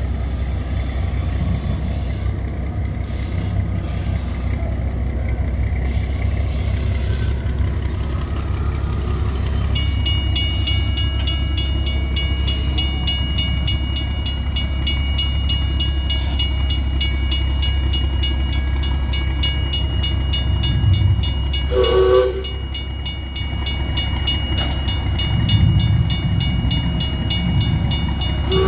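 Plymouth locomotive No. 14 running with a steady low rumble as it pulls a train slowly out. A steady high ringing joins about a third of the way in, and a horn gives a short toot about three-quarters of the way through and another at the very end.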